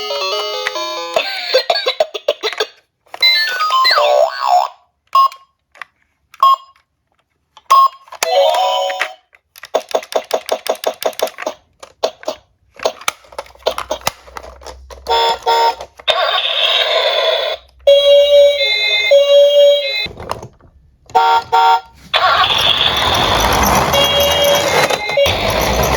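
Electronic toy police car and ambulance sound effects: short bursts of alarm-like tones and beeps, cut together with music. There is a run of rapid clicking near the middle and a fuller, denser passage near the end.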